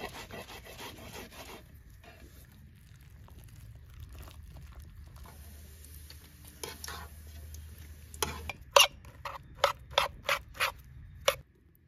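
Hand-prepared cooking sounds in quick succession: chopped herbs squished and rubbed by hand in a clay bowl, then a quieter stretch of oil frying, then a knife chopping cooked eggplant against a clay bowl, about eight sharp taps near the end.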